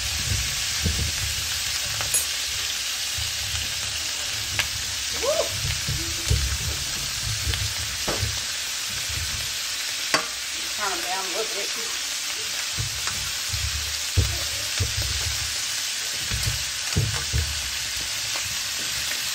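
Lamb chops sizzling steadily as they fry in a pan after being turned over, with a few sharp clicks and some low knocks over the sizzle.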